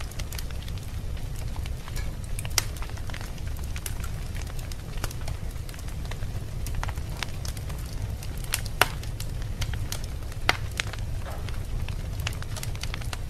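Wood fire burning in a fireplace: a steady low rumble of flames with irregular sharp crackles and pops, a few of them standing out louder than the rest.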